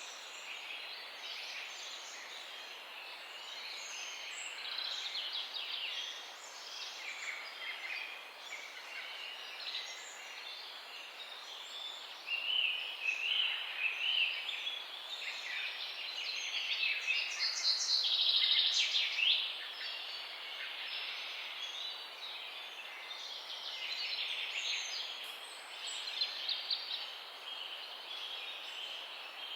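Several small songbirds chirping and trilling together in a continuous dawn chorus, over a faint steady hiss; one burst of rapid chirping is loudest about two-thirds of the way in.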